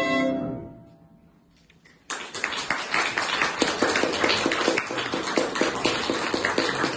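The last chord of a violin and piano rings out and dies away within about a second. After a brief hush, applause breaks out suddenly about two seconds in and goes on steadily.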